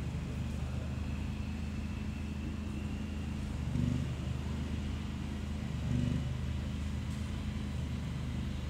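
A steady low engine hum, swelling briefly about four seconds in and again about six seconds in.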